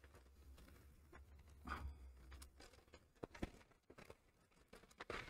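Near silence: faint rustling of a brown kraft paper bag being opened and its contents slid out, with a low steady hum for the first two seconds and one soft tap about three and a half seconds in.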